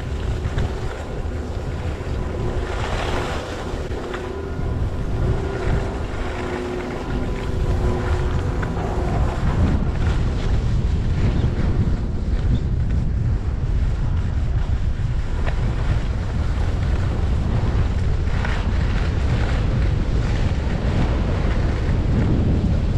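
Wind buffeting a GoPro's microphone while skiing downhill, with skis scraping over groomed snow. The rush grows louder about eight seconds in as speed picks up.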